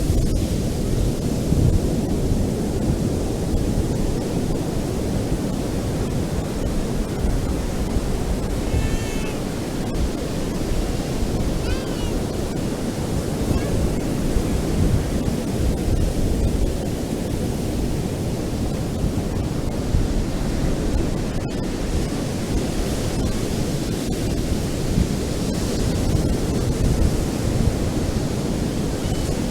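Ocean surf breaking on a beach, a steady deep rumble of waves. A couple of faint, short high calls come through about nine and twelve seconds in.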